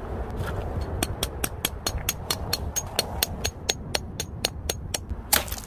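Rapid, even clicking, about four or five clicks a second for some four seconds, ending in one louder knock, over a low rumble of wind on the microphone.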